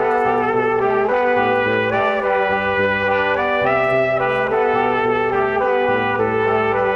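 Background music led by brass instruments, with sustained notes moving in step over a steady bass line.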